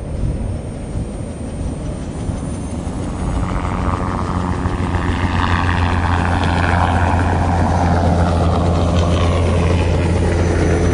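Helicopter flying past: a steady low rotor thud under a whine that rises in pitch and then slowly falls as it passes, growing louder over the first few seconds.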